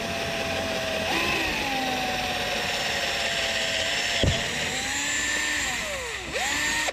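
Black+Decker cordless drill running as a bit bores a pilot hole through an OSB wall. The motor whine steps up in pitch about a second in, drops out briefly around four seconds, then sags and rises again with trigger and load before stopping at the end as the hole goes through.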